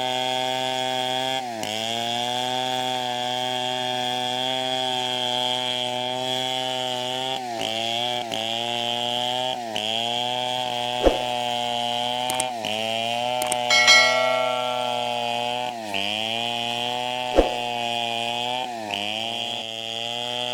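Chainsaw running under load while cutting teak. Its engine note dips and recovers every two or three seconds as the chain bites into the wood. Two sharp knocks come through, one about halfway and one near the end.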